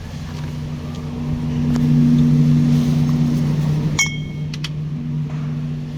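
A steady low hum that grows louder, peaks about two seconds in and then eases, with a sharp, ringing clink about four seconds in.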